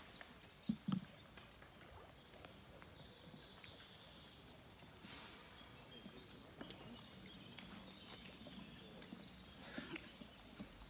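Faint outdoor background noise, with two short low knocks about a second in and a single sharp click midway.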